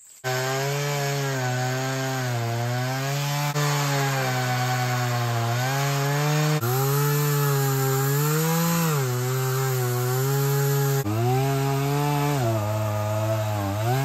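Gas chainsaw running at full throttle while crosscutting a poplar log, its engine pitch sagging and recovering as the bar works through the wood. The chain is dull, and the underpowered saw cuts very slowly.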